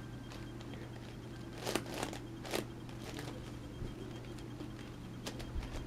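Scattered faint clicks of an 11x11x11 Rubik's cube's layers being turned and its pieces handled, a few separate clicks a second or so apart.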